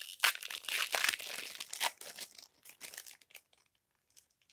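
Panini Prizm football card pack wrapper crinkling and cards being handled as a pack is opened. The crinkling is dense for about the first two seconds, then thins to a few scattered rustles.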